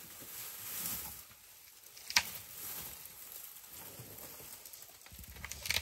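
African elephant browsing in a thorny bush close by, with branches and leaves rustling and a sharp twig snap about two seconds in and a few more snaps near the end.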